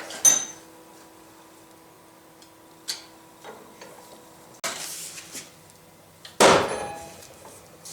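Steel parts of a bearing housing and a small homemade bearing press being handled on the bench: a sharp ringing metal clang just after the start, a few light knocks and some scraping, then a louder ringing clang about six and a half seconds in. A faint steady hum runs underneath.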